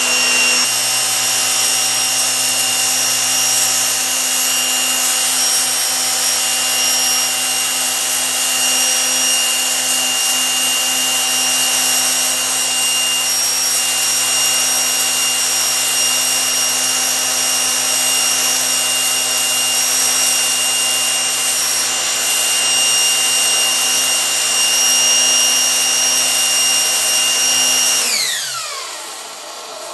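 Electric high-pressure washer's motor and pump running steadily at full pressure, its steady whine over a hiss; about 28 seconds in it is switched off and winds down with falling pitch. It runs with its total-stop switch bypassed, with good outlet pressure after the cracked valve cap was moved to the inlet side.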